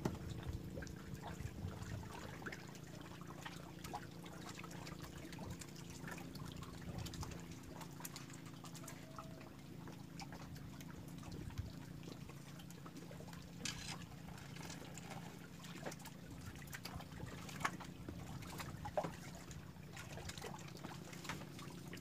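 Choppy water lapping and trickling against a floating fishing raft, over a faint steady low hum, with a few small scattered knocks.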